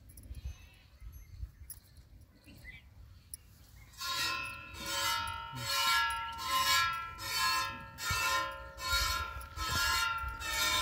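Hand-milking a cow into a stainless steel pot: squirts of milk hiss into the metal pot in a steady rhythm, a little more than one a second, and the pot rings. The squirting starts about four seconds in.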